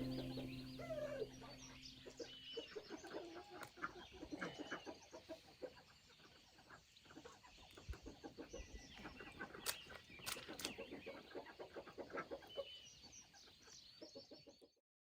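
Chickens clucking quietly in a string of short calls, with two sharp clicks a little past the middle. Guitar music fades out in the first couple of seconds, and the sound cuts off suddenly near the end.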